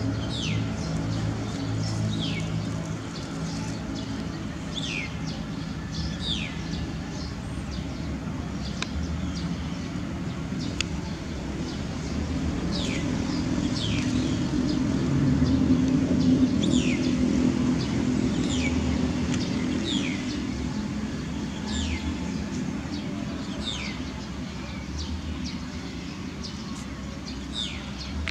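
A bird repeating a short, steeply falling whistle every second or two, over a low steady engine hum that grows louder in the middle and then eases off.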